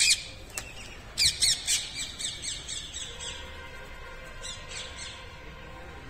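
Rose-ringed parakeets screeching: one shrill call, then a rapid run of harsh screeches from about a second in that fade out, and another short burst near the end. The parakeets are squabbling over a nest hole.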